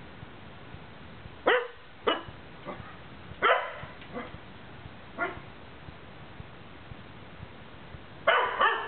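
Dog barking: short, sharp single barks about once a second through the first half, then a quick, louder run of barks near the end.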